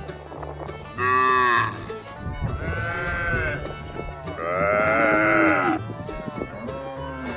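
Cattle mooing: four calls in a row, the middle two longer than the first and last, over background music.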